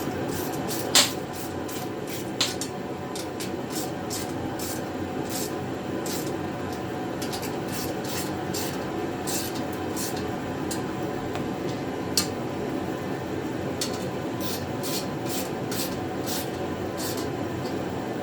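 Scattered small clicks and taps of metal cart parts and tools being handled during assembly, one sharper click about a second in, over a steady background hum.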